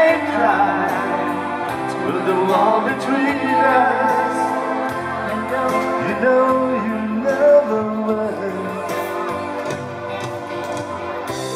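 Live band music: a woman singing a slow ballad into a microphone over electric keyboard accompaniment, with a man's voice singing along.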